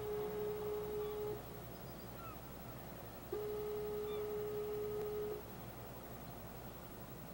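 Two steady horn blasts of about two seconds each, one plain mid-pitched note, the second starting about three seconds in, over faint bird chirps.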